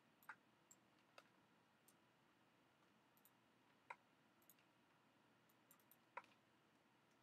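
Near silence with faint, irregular computer mouse clicks: a few sharper single clicks a second or more apart and some softer ones between them.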